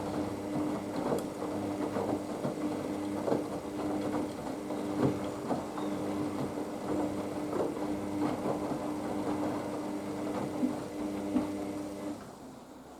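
Haier HWD 120 washer-dryer in its main wash: the drum motor runs with a steady hum while laundry and water slosh and knock inside the turning drum. The motor hum stops near the end.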